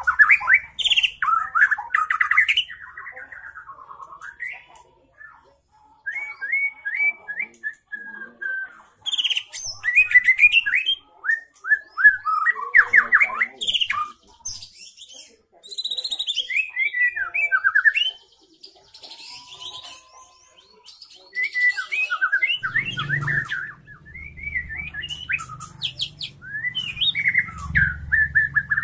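A young, spotted-plumaged ('trotol') white-rumped shama sings loud, varied phrases of quick sweeping notes and rapid trills, in bursts with short pauses between them. A low rumble comes in during the last few seconds.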